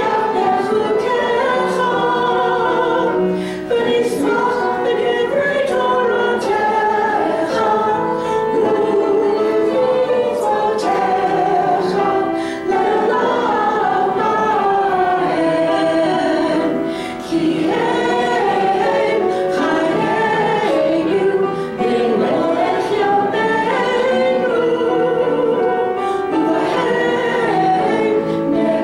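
A congregation singing a prayer melody together during a synagogue service, many voices in one continuous tune.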